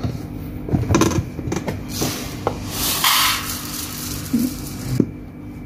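Kitchen handling sounds around a steel bowl of dry lentils: a few light knocks and clinks, and a little after two seconds in, a rattling hiss of dry grains lasting about a second and a half.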